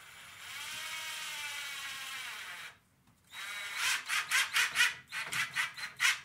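Cordless drill running at a door frame: a steady motor whine for a little under three seconds, then after a short pause a string of short trigger pulses, about three a second.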